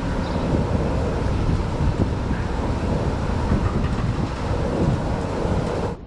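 Wind buffeting the microphone of a scope-mounted camera: a steady, heavy low rumble with no distinct events.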